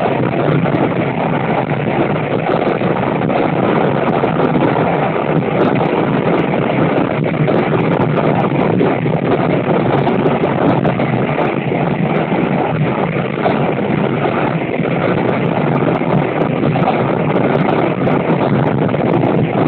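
Steady wind rush over the microphone at the open window of a moving KiHa 205 diesel railcar, over the railcar's running noise.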